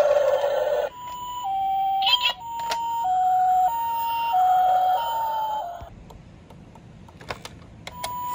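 Ambulance-style two-tone hi-lo siren sound, a higher and a lower note taking turns about every half second, as from a toy emergency vehicle. It cuts off with a short falling slide about six seconds in, and after a quieter gap with a few clicks it starts again near the end. A louder, different sound fills the first second before the siren begins.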